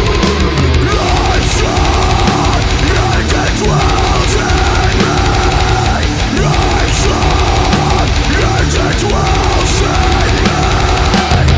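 Loud heavy metal music with distorted guitars and pounding drums.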